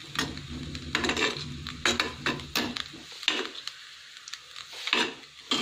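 Perforated steel ladle stirring and scraping diced steamed rice dumplings in a clay pot, a string of irregular scrapes, about eight, over a faint sizzle of the tempering cooking on low heat.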